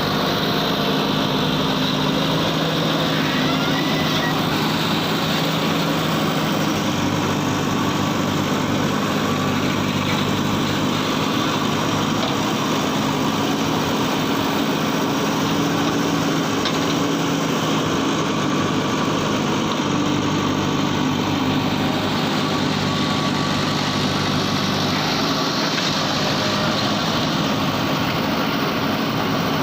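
Heavy diesel engine of the backhoe loader and truck at work, running steadily, its pitch shifting a little about twelve seconds in.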